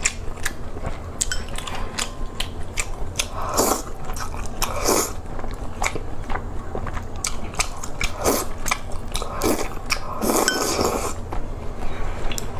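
Close-miked eating: biting and chewing, with many short wet clicks and a few louder, longer bursts of noise scattered through.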